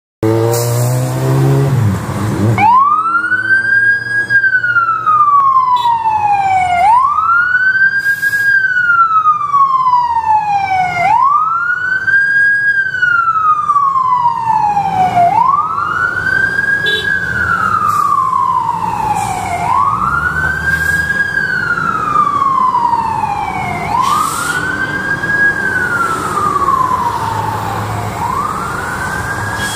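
Fire engine's siren wailing as it responds, about seven cycles of a quick rise in pitch followed by a slower fall, each roughly four seconds long. It grows fainter near the end as the truck moves away.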